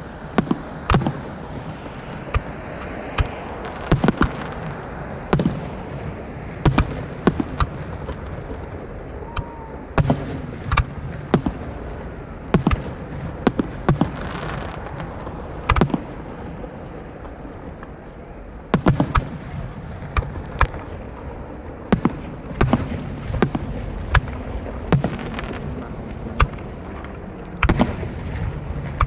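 Aerial fireworks show: shells bursting in quick, irregular succession, sharp reports one after another over a steady noisy background, with a brief lull about two-thirds of the way through.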